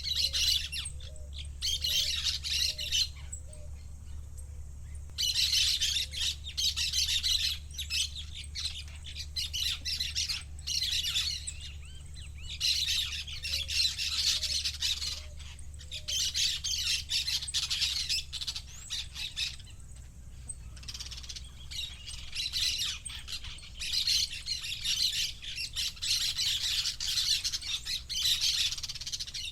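Parakeet chattering and squawking in long spells of rapid, high calls, broken by a few short pauses, over a steady low hum.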